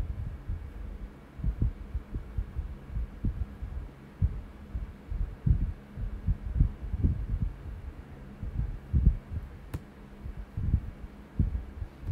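Irregular dull, low thumps from typing at a computer keyboard, carried through the desk to the microphone, over a steady low hum. One sharp click comes about ten seconds in.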